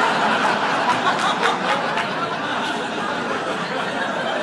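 Audience laughing together, a dense crowd laugh that eases off slightly toward the end.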